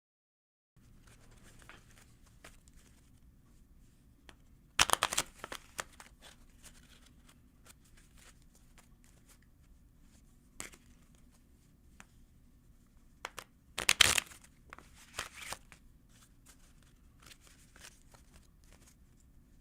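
A deck of playing cards being shuffled: two loud, quick shuffles of rapid flicking cards, about five seconds in and about fourteen seconds in, with quieter rustling and tapping of the cards between. A low steady hum lies underneath.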